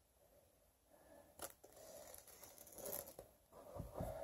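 Faint slitting and tearing of the plastic shrink wrap on a sealed vinyl LP sleeve with a small knife, the film crinkling as it is pulled, starting about a second in.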